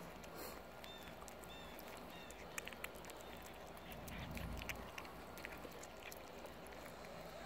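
Two cats chewing raw turkey giblets close to the microphone, with a steady run of small wet clicks and smacks from their bites. A few short high chirps sound in the background in the first few seconds, and a brief low rumble comes about four seconds in.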